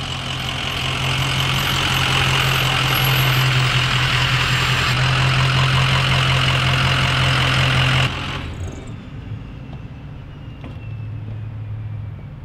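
Diesel engine of a Ford short bus driving close past, growing louder as it nears. The sound breaks off sharply about eight seconds in, and a quieter, lower engine idle remains.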